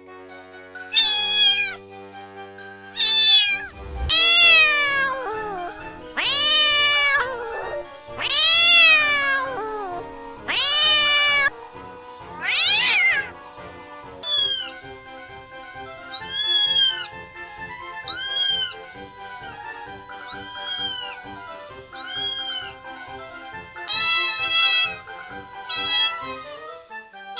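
Cats meowing over and over, about fourteen separate calls, each rising and then falling in pitch, with the later calls higher and shorter. Background music with a steady low beat plays underneath.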